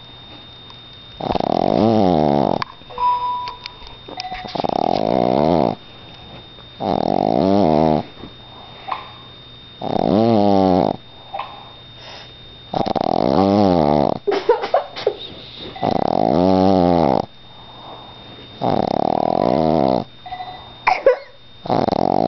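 Boston Terrier snoring like an old man: about eight long snores, one every three seconds or so, each lasting over a second with a wavering pitch. A few small clicks come between some of the snores.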